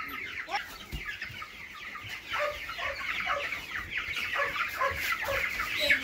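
A flock of five-week-old meat chickens peeping and chirping, many short calls overlapping without a break, with a thump about a second in.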